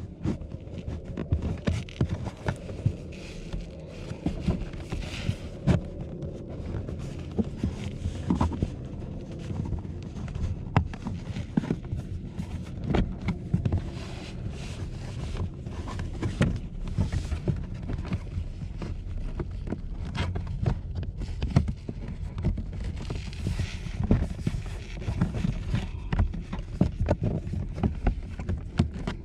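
Hard plastic under-dash trim panel of a Mercedes-Benz SLK being handled in the footwell: many irregular clicks, knocks and scrapes. Underneath is a constant low rumble and rustle of clothing and hands rubbing close to the microphone.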